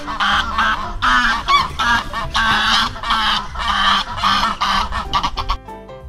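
Domestic goose honking over and over, a long run of harsh calls at about three a second that stops near the end.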